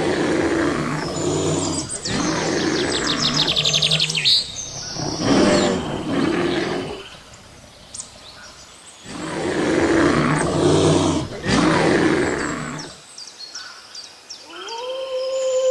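Brown bear growling in several long, rough bouts with short pauses between, and small birds chirping faintly behind. Near the end a wolf's howl begins, rising and then held on one note.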